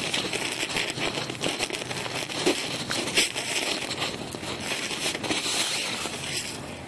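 Jacket fabric rustling and crinkling right against the phone's microphone, with handling clicks, as a jacket is pulled on; it eases off near the end.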